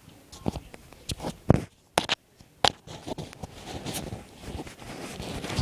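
Footsteps: a series of sharp, irregular clicks and knocks about every half second.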